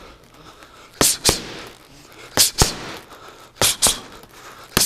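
Punches smacking into focus mitts in 1-2 combinations, a jab then a right: sharp paired smacks, three pairs about every second and a quarter, with another pair starting at the very end.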